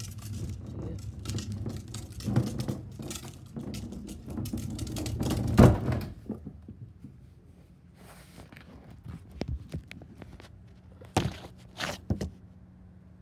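Rumbling and knocking from a plastic wheeled trash bin being handled and moved over concrete, with one loud thunk about five and a half seconds in. After that it goes quieter, with a few sharp knocks near the end.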